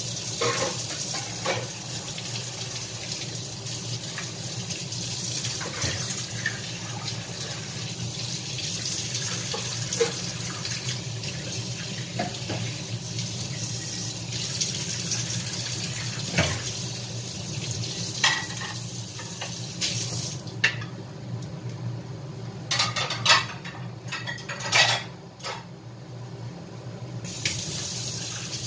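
Kitchen tap running into a sink while dishes and pans are washed, with scattered clinks and knocks of crockery and metal. Near the end the water stops for several seconds while the dishes clatter, then runs again.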